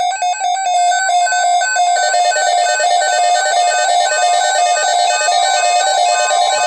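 Weather radio alert tones: a loud electronic alarm whose notes step rapidly back and forth in pitch. A steady single tone joins near the end. They herald a severe thunderstorm watch broadcast.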